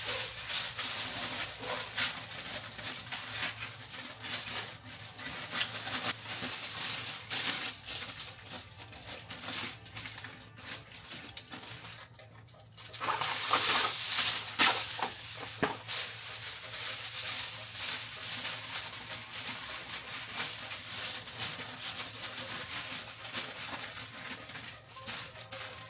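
Irregular crinkling and crackling of aluminium foil and plastic sheeting being handled and pressed on by hand for masking, with a short lull about twelve seconds in and a louder burst of crinkling just after. A faint low steady hum runs underneath.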